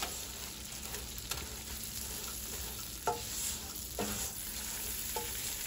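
Vermicelli noodles frying in butter with a steady sizzle as they are stirred and turned in a pan with a silicone spatula, which scrapes the pan briefly a few times.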